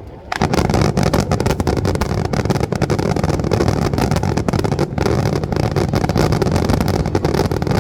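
Dense barrage of fireworks, rapid bangs and crackles running together into a continuous rumble that starts suddenly just after the start.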